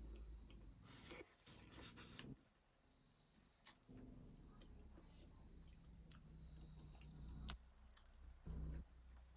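Faint chewing and mouth sounds of eating by hand, with a sharp click against a steel plate about a third of the way in and another near the end, over a steady high-pitched background drone.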